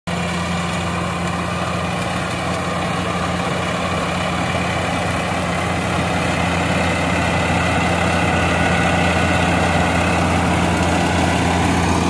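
Kubota ARN698 combine harvester running as it cuts rice: a steady engine and machinery hum with a strong low drone, growing slightly louder as the machine comes closer.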